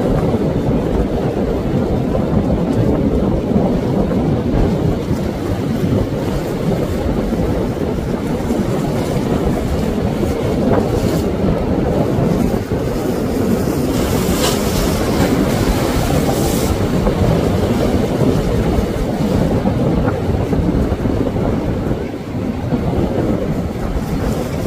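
Wind buffeting the microphone in a steady low rumble, mixed with the wash of waves breaking against the jetty's rocks.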